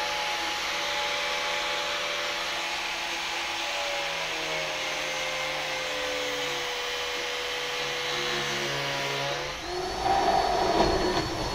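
Angle grinder running and cutting through a clamped plate, its motor note dipping slightly as the disc bites. About nine and a half seconds in it stops, and a drill starts with a louder, higher whine.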